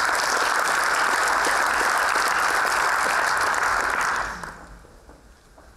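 An audience applauding steadily, the clapping dying away about four seconds in.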